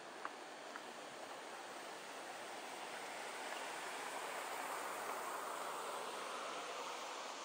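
Outdoor ambience: a steady rushing noise that grows louder through the middle and eases toward the end, with a couple of faint ticks in the first second.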